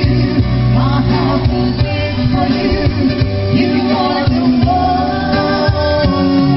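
Live pop music: a woman sings into a microphone over keyboard accompaniment and a steady bass line.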